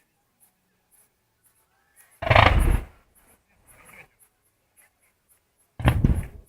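Two loud firework shell bursts about three and a half seconds apart, each a sudden boom that dies away in under a second.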